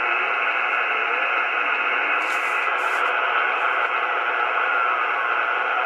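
Icom R71E communications receiver's speaker giving out steady band noise and static while being tuned near 60 kHz, with a faint carrier tone gliding down in pitch near the end as the dial turns. Two short bursts of high hiss come about two and three seconds in.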